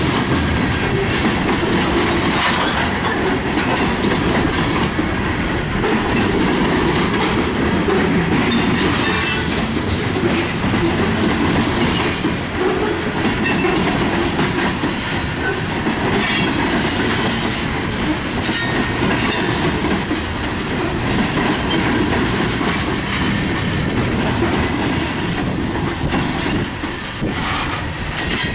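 Freight train of loaded covered hopper cars rolling past at trackside: a steady, loud rumble and clatter of steel wheels on the rails.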